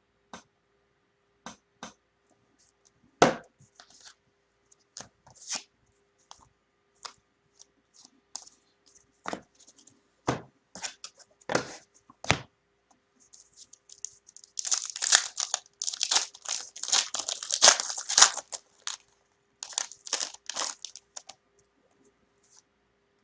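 Trading cards handled with scattered light clicks and taps. About fifteen seconds in come several seconds of crinkling and tearing as a card pack wrapper is ripped open.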